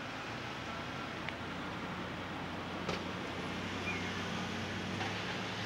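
Steady outdoor background noise with the low hum of a vehicle engine, which grows a little stronger about halfway through, and a few faint clicks.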